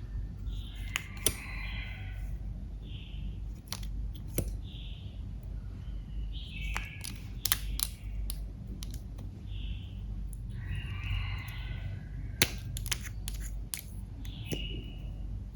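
Clear slime being squeezed and worked by hand, giving sharp clicks and pops at irregular intervals with short squelching hisses between them.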